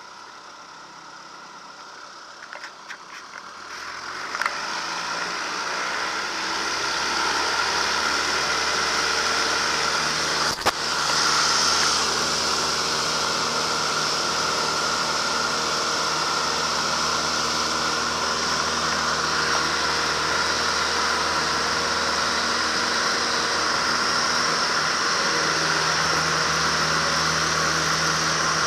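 Marquart Charger biplane's piston engine and propeller heard from the open cockpit, quiet at first and then building up about four seconds in to a steady drone as the plane rolls along the runway. A single sharp knock about eleven seconds in.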